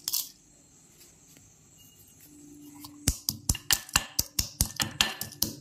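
Cardamom pods being crushed with a metal pestle in a small metal mortar: after a single clink at the start, a fast run of sharp metallic strikes, about five a second, begins about three seconds in.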